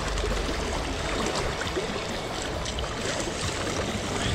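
Fast, high river water rushing steadily, a continuous even noise with a few faint ticks in it.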